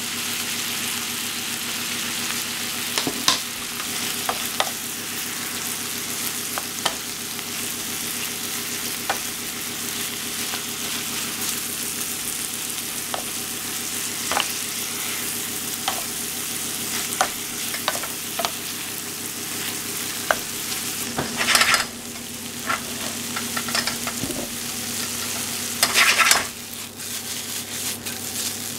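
Sweet corn, cos lettuce and capers sizzling in a steel frying pan over a gas flame, with a wooden spoon clicking and scraping against the pan as it stirs. Twice near the end the sizzle surges louder as the food is tossed in the pan.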